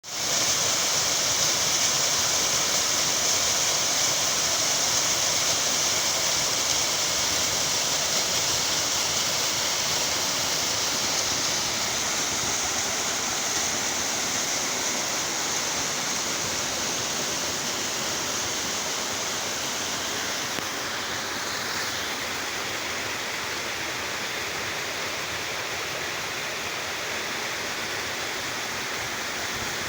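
Waterfall running: a steady rush of falling water, easing slightly in level as it goes.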